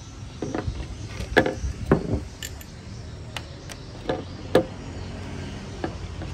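Handling noises: an opened hard disk drive being set down and moved on a wooden tabletop, giving a series of irregular knocks and clicks, the loudest about one and a half and four and a half seconds in.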